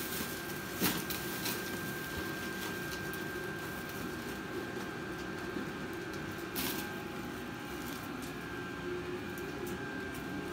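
A few short clicks and knocks from handling a broken plastic handle from a polishing kit, over a steady background hum with a faint constant high whine.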